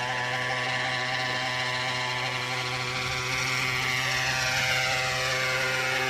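Small gas engine of a Century 800-size RC helicopter running steadily in flight; from about three seconds in, its higher tones rise and then fall in pitch.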